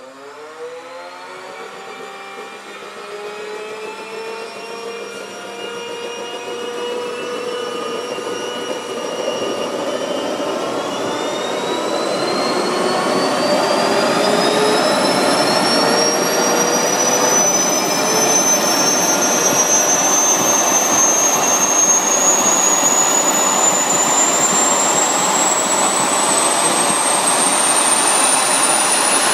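Wren 44 K model turboprop engines of a twin-engine model Cessna 425 spooling up after starting: a turbine whine that climbs steadily in pitch, growing louder over the first dozen seconds and then running loud and steady while the whine keeps rising slowly.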